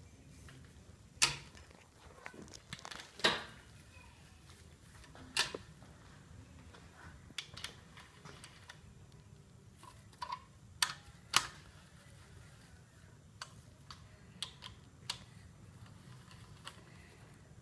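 Scattered metal clicks and clinks from a hand socket wrench being fitted and turned on the main bearing cap bolts of a 5.7-litre HEMI V8 block, with a few sharper knocks about a second, three seconds, five seconds and eleven seconds in.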